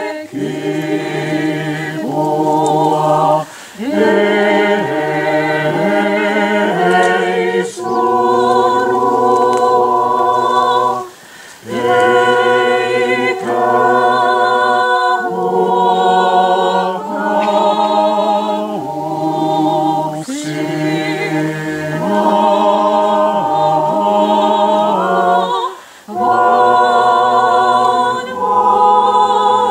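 A small group of unaccompanied voices singing Orthodox memorial chant in harmony, holding long chords in slow phrases, with short breaths between phrases about three and a half, eleven and twenty-six seconds in.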